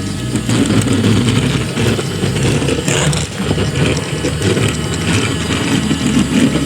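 Small electric motor and plastic gears of a battery-powered toy train running, a steady whirring rattle.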